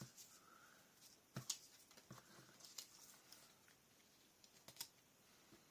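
Near silence with a few faint light taps and rustles of paper cut-outs being handled and set down on a scrapbook page.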